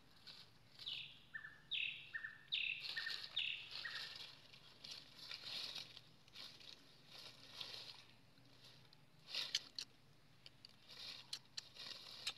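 A bird calls in the first few seconds, about four quick phrases, each a falling high note followed by a lower one. Dry leaves rustle and crackle irregularly as a macaque rummages through the leaf litter with her hands.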